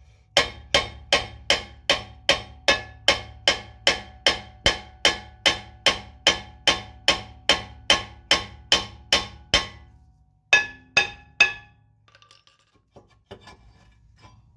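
Hammer blows on metal in a steady run of about two and a half a second, each ringing briefly. Near the end they stop, three more blows follow, then a few faint clicks.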